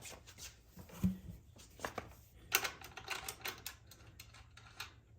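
Irregular metallic clicks and clinks of hand tools and stainless bolts and washers being handled, with a duller knock about a second in.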